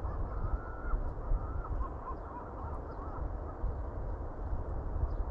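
Steady wind rumbling on the microphone, with several birds giving short, gliding calls during the first three seconds.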